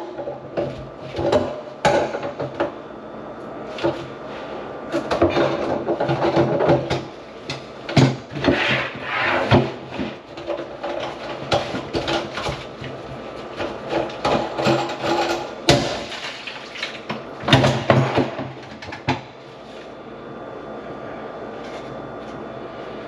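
Irregular knocking, clattering and scraping of work on a kitchen sink drain that is plugged with grease, with hard parts striking each other and rubbing.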